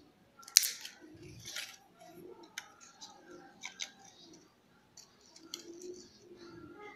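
Cutting pliers snipping the thin copper lead wires of a replacement loudspeaker voice coil: several sharp clicks, the loudest about half a second in.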